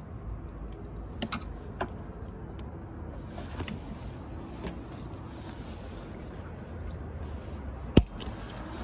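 Scattered clicks and light knocks of hands and tools working a silicone turbo intake hose and its clips in a car's engine bay, with one sharp, loud click near the end, over a steady low rumble.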